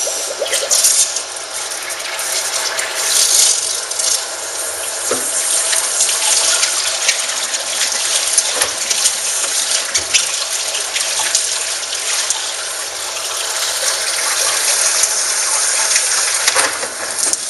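Water spraying hard from a hose nozzle into a plastic mop bucket: a steady gushing hiss that swells and dips a little as the spray moves.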